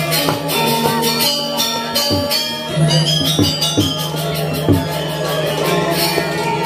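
Balinese gamelan playing a tabuh petegak: bronze metallophones ringing dense interlocking figures over a long low sustained tone, with kendang drum strokes every second or so and bamboo suling flutes.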